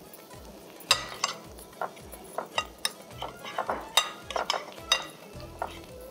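A metal spoon clinking and scraping against a glass Pyrex baking dish as it is greased with ghee: a run of short, light clinks and taps, a few of them ringing briefly.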